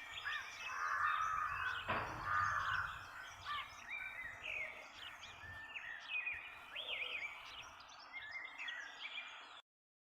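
Dawn chorus of several songbirds chirping and trilling over a faint outdoor hiss, with a harsher, rasping call overlapping them from about a second in. The sound cuts off abruptly near the end.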